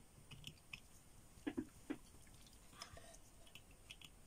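Faint clicks and light taps of small craft items being handled on a desk, with a few slightly louder knocks about one and a half to two seconds in.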